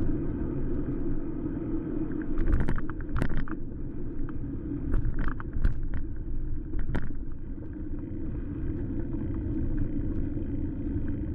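Steady low rumble of wind on the microphone and tyre noise from riding a bicycle, with a few sharp knocks between about two and seven seconds in.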